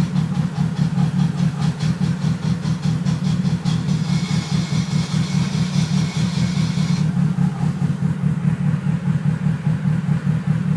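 Car engine idling with a newly installed Quarter Master twin-disc clutch. For the first several seconds a fast rattle, then a high-pitched whine, sounds over the idle and cuts off about seven seconds in. The owner hears this noise only with the clutch pedal pressed and asks whether it is normal after the clutch install.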